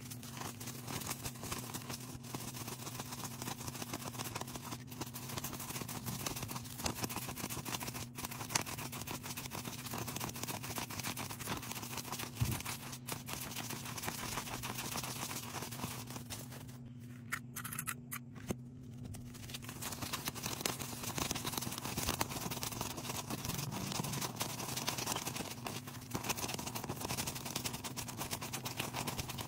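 Stacks of Philippine peso paper banknotes being flicked through and counted by hand: fast crisp paper flicks and rustling, over a steady low hum.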